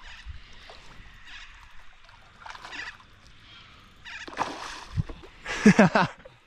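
Water splashing as a big hooked Murray cod thrashes at the surface beside the boat, in several short bursts that grow louder toward the end. The loudest burst, about five and a half seconds in, comes with a short vocal exclamation.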